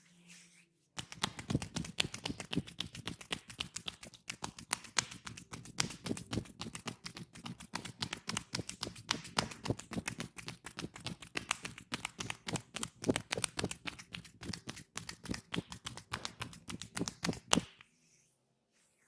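Hands tapping rapidly and rhythmically on skin in a percussive massage stroke. It starts about a second in and stops abruptly about a second and a half before the end.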